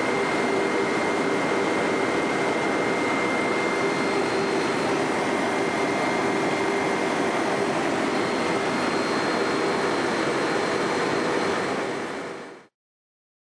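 Steady in-flight cabin noise of an MD-600N helicopter: the turbine and rotor system running with a constant low hum and a high whine. It fades out to silence near the end.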